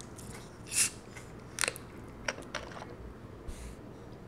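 Plastic soda bottle of grape Fanta twisted open: a short fizzing hiss of escaping carbonation about a second in, followed by a few light clicks from the cap.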